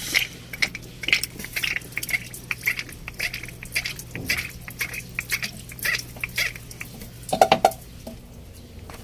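Irregular metallic clinks and taps of hand tools working on the engine's fuel fittings, with a louder cluster near the end, over a steady low hum.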